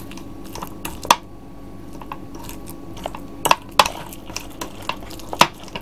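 A fork mashing butter, garlic puree and parsley together, with a few sharp clinks of the fork against the dish.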